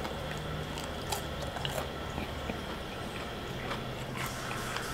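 Someone chewing a mouthful of crispy, breaded spicy chicken nugget: scattered small crunches and mouth clicks.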